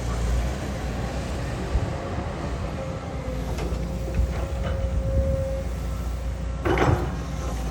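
Excavator's diesel engine running steadily under load, a low rumble with a steady whine over it, a few short knocks, and a brief louder rush of noise near the end.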